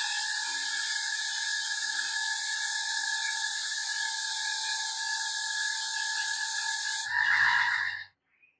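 A power tool motor running steadily with a high whine and a hiss. It surges briefly near the end, then cuts off suddenly about eight seconds in.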